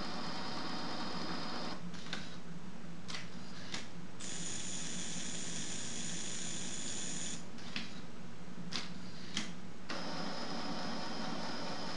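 Steady background hum and hiss, with a handful of light, sharp clicks as a Lego playing piece is handled and pressed onto a Lego game board by hand.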